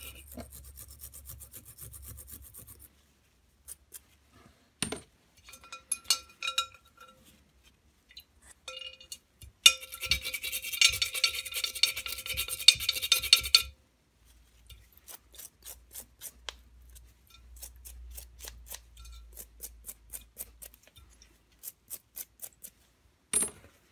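Small metal clutch parts being scrubbed by hand in a glass bowl of paraffin: bursts of scratchy rubbing, loudest for a few seconds near the middle, then a run of sharp clicks and clinks as the parts knock against each other and the glass.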